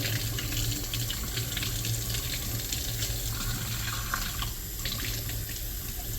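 Tap water running steadily and splashing into bathwater.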